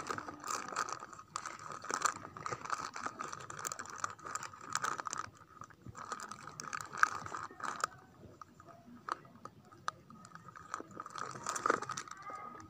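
Irregular crinkling and clicking as plastic packets are handled and rummaged through.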